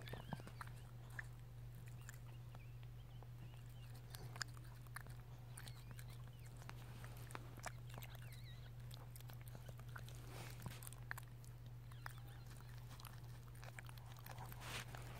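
Chihuahua mother licking her newborn puppy and chewing at its umbilical cord: faint, irregular wet smacks and small clicks over a steady low hum.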